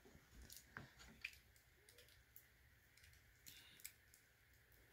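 Faint scattered clicks and light scrapes of a knife blade cutting away tape wrapped on a 3D printer's wiring harness.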